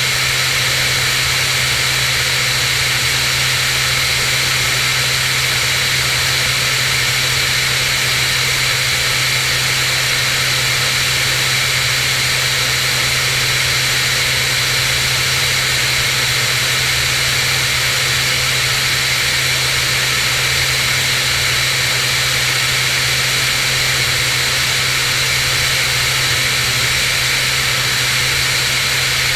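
Cirrus SR22's piston engine and propeller running steadily in flight, a constant unchanging drone, with air rushing past the camera mounted outside the plane.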